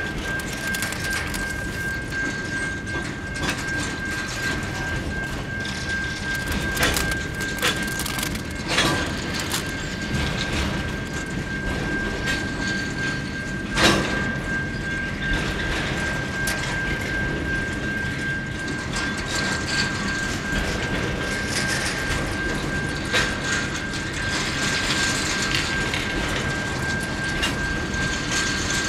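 Freight train boxcar wagons rolling past on the track: a steady rumble of wheels on rail with a constant high-pitched ring running through it. Occasional sharp clunks stand out, the loudest about halfway through.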